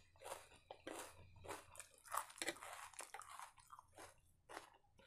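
A person chewing a mouthful of dosa and chicken in green masala gravy close to the microphone: a string of short, irregular wet chewing and crunching sounds, roughly two a second.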